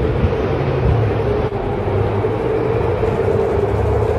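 Supercars V8 race engines on the circuit, a steady loud drone with no break.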